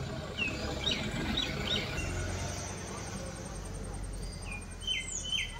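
Birds calling: a run of short, downward-sliding chirps about half a second in, and another run of three or four near the end, over a steady low outdoor rumble.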